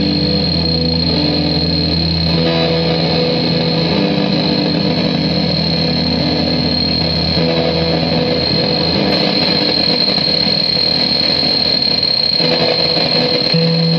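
Electric guitar played through the LSDelay, a homemade delay pedal. Its repeats pile up into a dense, droning wash with held notes that change every few seconds and a steady high whine.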